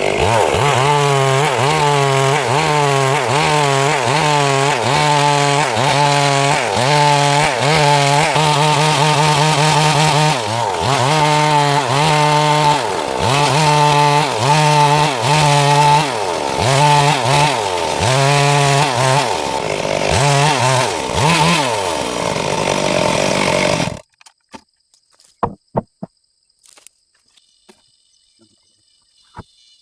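Petrol chainsaw running and cutting wood, its engine pitch rising and dipping again and again, about once a second. It cuts off abruptly about 24 seconds in, leaving only a few faint clicks.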